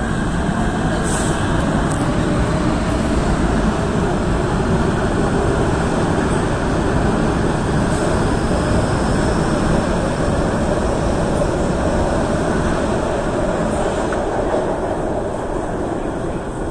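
MTR K-stock metro train pulling out of an underground station into the tunnel, its wheels and running gear making a loud, steady noise as the carriages pass, easing a little near the end as the last car clears.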